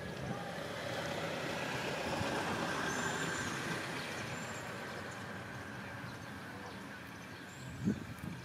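A motor vehicle passing, its engine and road noise swelling to a peak a couple of seconds in and then slowly fading. A short knock near the end.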